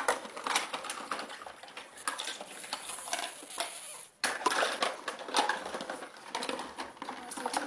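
A child's small dishes, pans and spoons clinking and clattering as they are handled and stacked, in a string of light knocks, with a short break about four seconds in.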